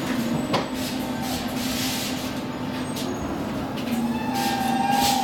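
Stockholm Metro C14 train running slowly to a stop at a station platform, heard from inside the passenger car: a steady electrical hum with a couple of light knocks. About four seconds in, a second, higher steady tone comes in.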